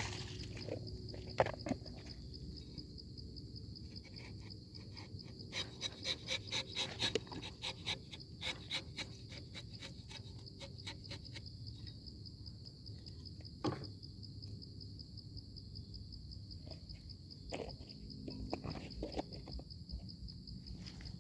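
Insects, crickets or similar, trilling steadily on one high note in a rubber plantation. Over it come a quick run of short crackling clicks from about five to nine seconds in, and a few single knocks.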